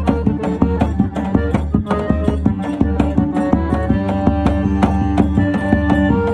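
Forró music played by a band: a fast, steady percussion beat under sustained melodic tones, with no singing.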